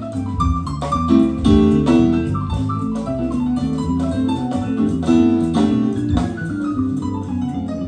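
Instrumental music played back from cassette tape on an Akai A&D GX-Z9100EV tape deck, with many quickly changing notes.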